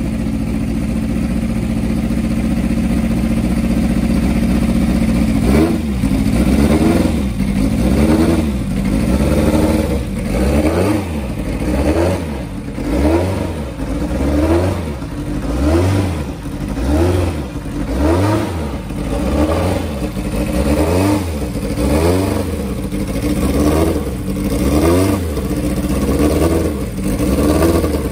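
Ford twin-cam four-cylinder racing engine of a 1975 Lola T360 Formula Atlantic car, idling steadily at first. From about five seconds in it is blipped repeatedly on the throttle, about once a second, each rev rising and falling in pitch.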